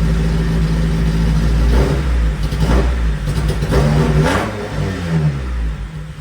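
1992 Honda Civic's four-cylinder engine running rough on its first start after being reinstalled, revved twice in the middle and then settling back down. It sounds 'not happy', but it runs.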